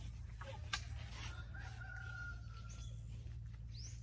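A rooster crows once, faint and distant, starting about a second in. A small bird chirps briefly near the end. A steady low hum runs underneath.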